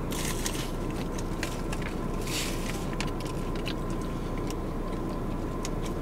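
Steady hum of a car cabin, with small crunches and a paper-bag rustle about two seconds in as a flaky Jamaican beef patty is bitten and chewed.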